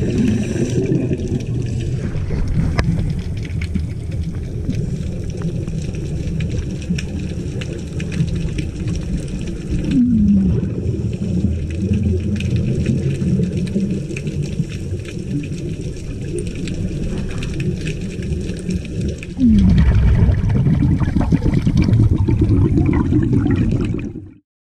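Muffled underwater sound of scuba divers' regulators and exhaled bubbles, a steady low wash with scattered bubbling clicks. Two short downward-sliding tones come about ten seconds in and again near the end, where the sound grows louder before cutting off suddenly.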